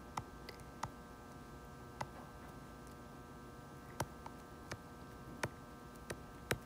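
Stylus tip tapping on a tablet's glass screen while digits are written: about ten sharp clicks at irregular intervals, over a faint steady electrical hum.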